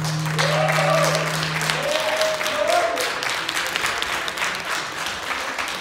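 Congregation applauding with many hands clapping as the dance music ends, its last low held note cutting off about two seconds in. A few voices call out over the clapping in the first few seconds.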